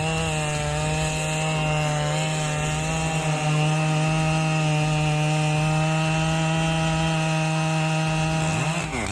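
Husqvarna 3120XP two-stroke chainsaw cutting through wood at a steady high pitch. Its pitch starts wavering up and down near the end.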